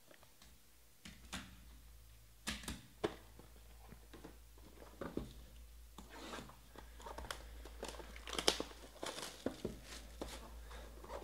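A few sharp clicks and taps as cards and a box are handled, then clear plastic shrink-wrap being torn off a trading-card box and crinkled in the hand, a dense crackling from about six seconds in.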